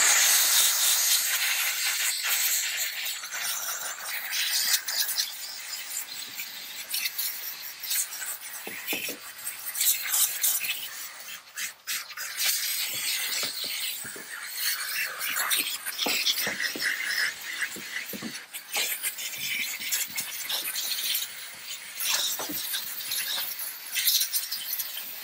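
Steam cleaner jetting steam through its round brush attachment: a steady high hiss that starts abruptly, with scrubbing and scraping clicks as the brush works over a car battery.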